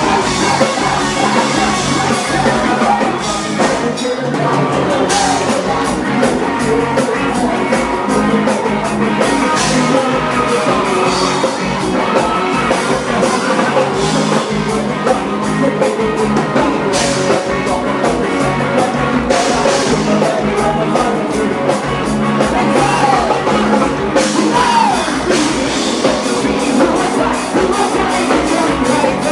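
Live rock band playing loudly, with a drum kit and a male singer singing into a microphone.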